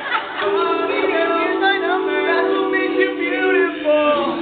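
All-male a cappella group singing: the backing voices hold a steady low chord that shifts near the end, while a lead vocal line moves above it.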